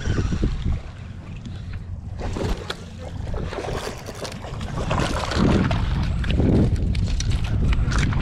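Wind buffeting the microphone in a low, uneven rumble, with splashing from a hooked fish thrashing at the water's surface.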